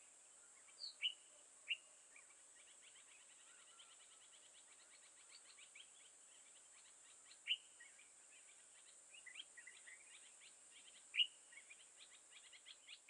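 Birds calling: sharp single chirps every few seconds over a fast, fainter run of high repeated notes. A steady high whine sits underneath.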